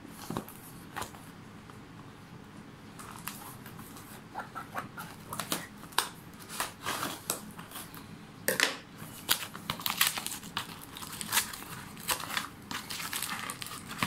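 Scissors cutting the packing tape of a cardboard shipping box, then the box being torn open: irregular snips, rips and crinkling of tape and card, getting busier and louder from about eight seconds in.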